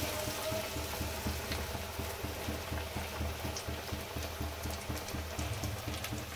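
Chana dal pakoras sizzling as they deep-fry in hot oil in an iron kadhai: a steady bubbling hiss with fine crackles throughout, over a low hum.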